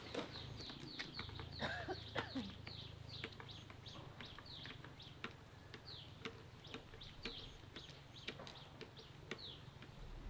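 Chicks peeping: a run of short, high cheeps that fall in pitch, about two or three a second, over a faint low steady hum.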